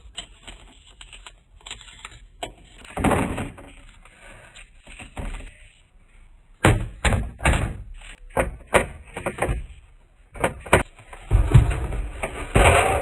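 Items being set down and shuffled while restocking a fridge or snack drawer, heard as sharp knocks and clacks with rustling between them. The knocks come thick and fast from about halfway in.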